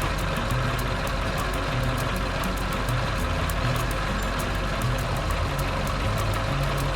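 Cartoon soundtrack: a steady engine-like rumble under background music with a stepping bass line and regular high ticks.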